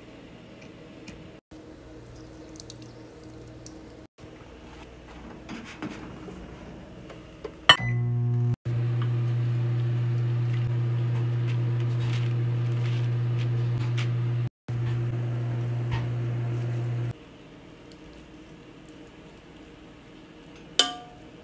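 Kitchen handling sounds: a knife cutting a lime on a plastic cutting board with a few soft taps. Then a sharp metallic clink and a loud steady low hum that runs for about nine seconds and cuts off suddenly, while metal tongs work shredded pot roast in the cooker pot. Another ringing clink of the tongs comes near the end.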